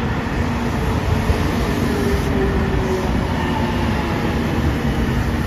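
JR Shikoku 8000-series electric limited-express train rolling slowly along the platform as it pulls in. A steady low rumble of wheels and running gear, with a faint motor hum whose tones dip slightly in pitch partway through.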